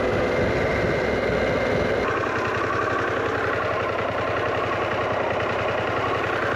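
Harley-Davidson Pan America's V-twin engine running, its note shifting lower about two seconds in.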